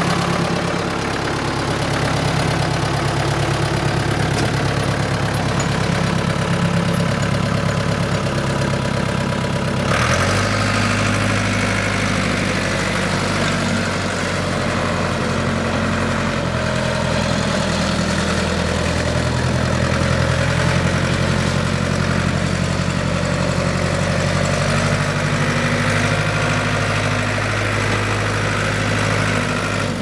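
Diesel engine of a 1996 Ford 555D backhoe running steadily at idle. Its tone shifts abruptly about ten seconds in.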